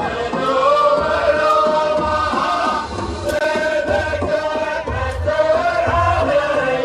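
Male voices chanting a sung Middle Eastern melody in long held notes over a low drum beat, in the style of a Gulf wedding shaila.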